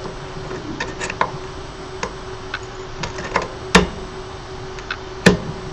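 Small screwdriver clicking and tapping against the screen frame of a resin printer: scattered light ticks, with two sharper clicks about four and five seconds in.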